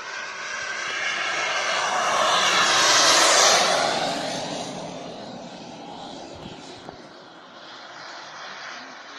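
JetCat P-200SX turbine of a large RC F-100 Super Sabre scale jet passing by in flight: a turbine rush and whine that swells to its loudest about three seconds in, then fades away.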